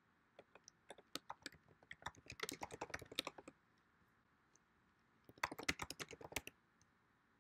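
Typing on a computer keyboard: a run of quick keystrokes lasting about three seconds, a pause, then a second, shorter run of keystrokes about five seconds in.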